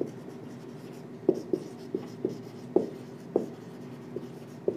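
Marker pen writing on a whiteboard: short, irregularly spaced strokes and taps of the tip on the board, about eight in all, over a faint steady hum.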